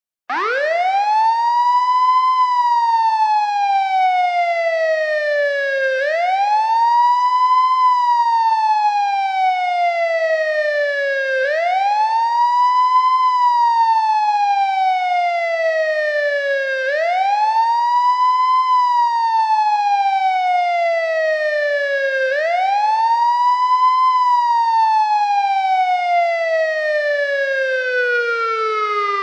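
Police siren in a slow wail, its pitch rising in about two seconds and falling more slowly over about three and a half seconds. The cycle repeats five times, about every five and a half seconds.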